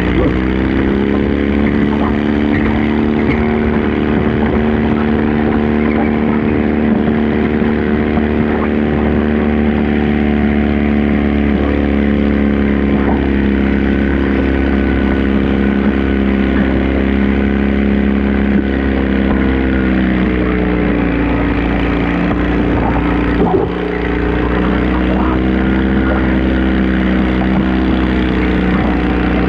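Stock garden tractor engine pulling a stoneboat under load. The revs climb at the start and hold steady, sag slightly about twenty seconds in with a brief dip, then settle back.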